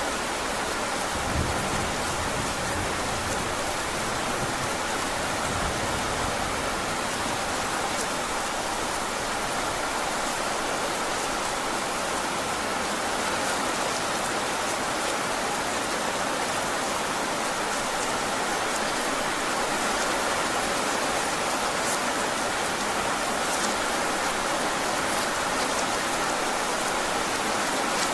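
Heavy rain falling steadily, an even hiss with no let-up, and a brief low rumble about a second in.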